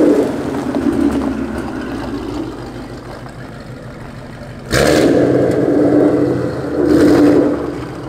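Ford Mustang's Gen 1 Coyote 5.0-litre V8 settles to a quieter idle, then is revved sharply about five seconds in. It is revved again briefly near the end.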